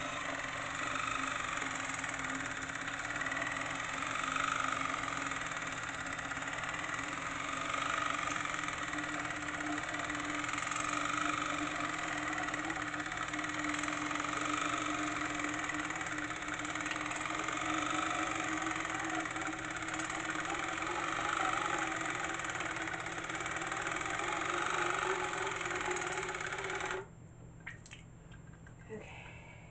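Water flosser's pump motor running steadily, cutting off sharply near the end, followed by a few faint clicks.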